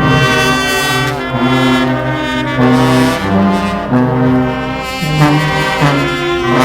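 Brass band playing: trombones and trumpets holding loud chords over a low bass line, the notes changing every second or so.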